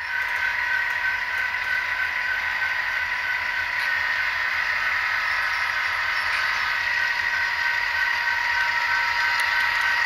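HO scale model diesel locomotives and trains running on the layout track: a steady whine of several high tones, one of them pulsing about twice a second, over a low hum and light rattling.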